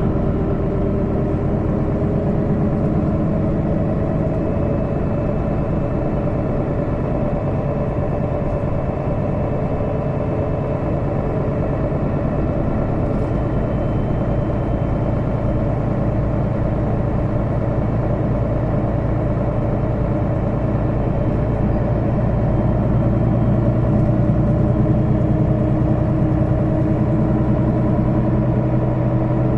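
Mercedes-Benz Citaro O530 city bus heard from inside during a ride: its diesel engine and drivetrain run steadily under way. The engine note rises slightly and grows a little louder over the last few seconds.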